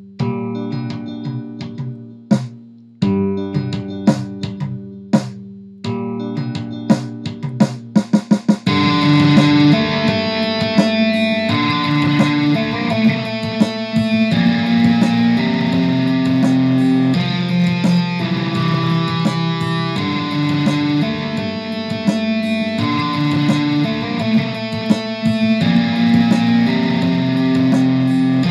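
Electric guitar playing a sparse clean single-note figure with delay repeats. About nine seconds in it switches to a distorted tone with delay, holding long notes with slides over a loud, dense sound.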